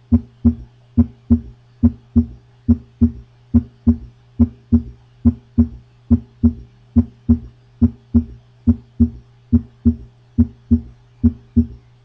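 Recorded heart sounds of an S3 ventricular gallop: dull low thumps in a steady galloping rhythm, each heartbeat's two normal sounds followed by an extra third sound, over a steady low hum. The extra sound comes from rapid filling of the ventricle. It can be normal in young, fit people, but it also occurs in heart failure, mitral regurgitation and other heart disease.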